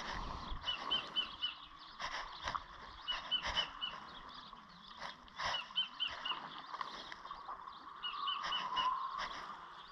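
A bird calling: quick runs of four short high chirps, repeated every two to three seconds, with a few soft knocks in between.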